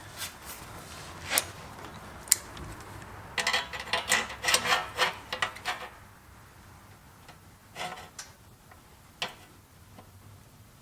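Punch-and-flange tool punching spot-weld holes through sheet steel: sharp clicks, two single ones early, then a quick cluster in the middle and a couple more spaced out near the end.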